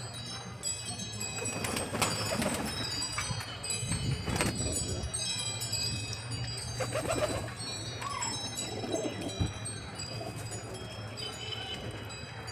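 Pigeons cooing now and then over a continuous high tinkling of chimes.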